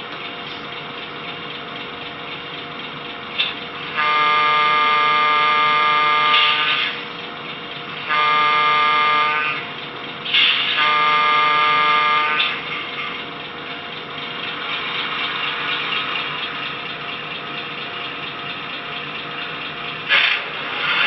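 Union Pacific Veranda gas-turbine model locomotive's QSI Revolution sound decoder, playing a steady turbine idle hum through the model's small speaker. The horn sounds three times: a long blast about four seconds in, then two shorter ones, with brief hissing sounds around them. Later the turbine sound swells.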